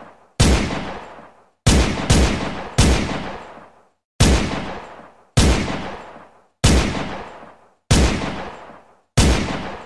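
Glock 17 9 mm pistol firing nine single shots about a second or so apart, with a quick pair near the two-second mark. Each shot is a sharp crack followed by a long fading echo.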